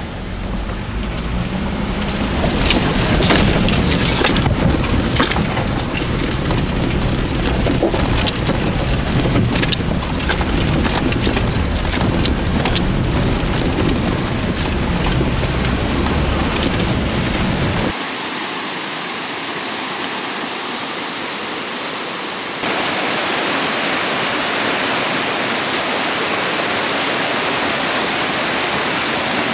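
A 4x4 driving along a rocky riverbed through shallow water: low engine and drivetrain rumble with splashing and scattered knocks. About eighteen seconds in this gives way to the steady rush of a fast mountain river, which gets louder a few seconds later.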